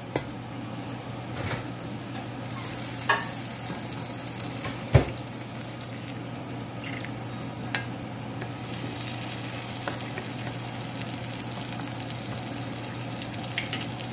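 Minced chicken, tomato and eggs frying in butter in a skillet: a steady sizzle over a steady low hum, with a few sharp knocks and taps in the pan, the loudest about five seconds in.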